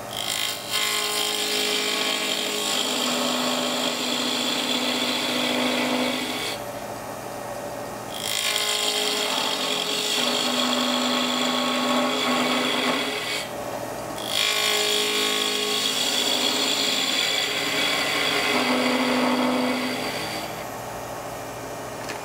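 A gouge cutting a chamfer into the end grain of a spinning alder blank on a wood lathe. The shaving noise comes in three passes of about five or six seconds each, and the lathe keeps running steadily in the short pauses between them.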